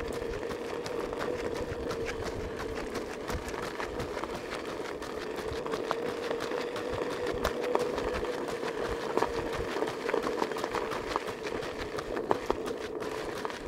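A vehicle motor running steadily with a constant whine over a hiss, with scattered light clicks and ticks in the second half.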